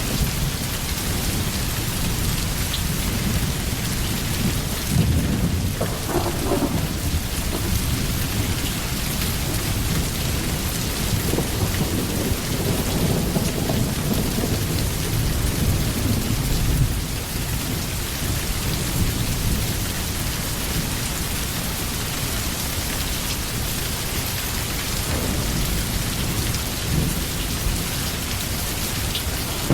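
Steady rain falling hard, with low rolls of thunder rumbling a few seconds in and again around the middle.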